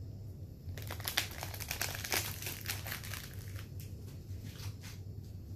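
Crinkling wrapper of a packet of chocolate wafers, handled and opened by hand: a dense run of crackles for a couple of seconds from about a second in, then scattered crackles.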